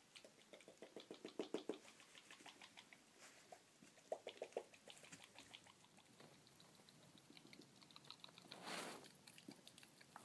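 A dog's jaws chattering in runs of rapid, even clicks, about ten a second, that come and go: the rhythmic jerking of canine distemper myoclonus. A brief breathy rush near the end.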